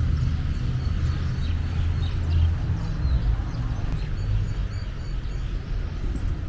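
Outdoor ambience: a steady, uneven low rumble of wind buffeting the microphone, with a few faint, short bird chirps.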